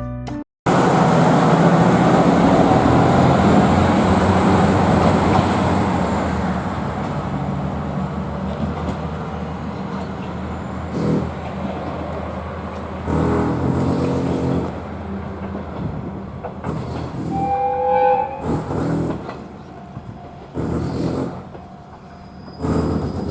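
Diesel railcar running loudly on the Tenryū Hamanako Railroad, its sound fading away over about ten seconds. A short high tone sounds later on.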